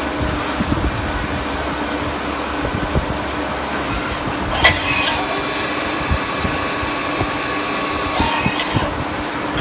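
CNC lathe with an automatic workpiece loader running with a steady mechanical hum. A sharp clack comes about halfway through, followed by a whine of several steady tones for about three seconds, then another clack.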